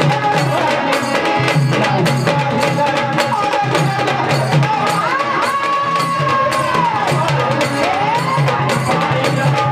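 Marathi gondhal folk music played live: fast, steady drumming on a sambal and a dhol, with a melody held on one long note about halfway through.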